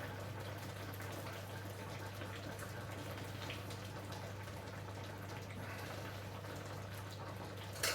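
Water from boiled potatoes being drained through a sieve: a faint, steady pouring and trickling over a constant low hum, with a short knock at the very end.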